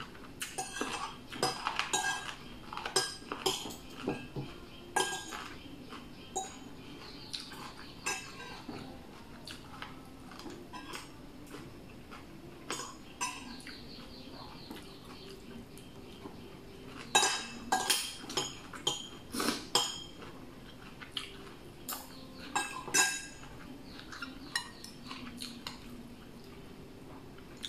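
Metal spoon clinking against a ceramic plate and a glass bowl in scattered clusters of sharp taps, with soft chewing in the quieter stretches between.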